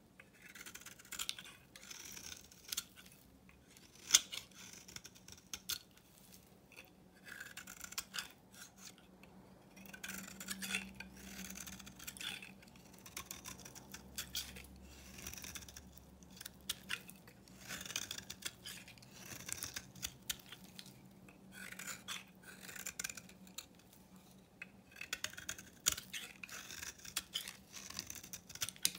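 Snap-off utility knife blade carving and chipping into an old bar of soap, in a run of crackly scraping strokes as flakes break away, with a few sharp clicks.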